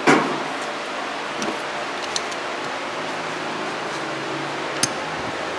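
PVC pipes and fittings of a whirlpool tub's plumbing being handled: one sharp knock near the start, then a few faint clicks, over a steady hiss.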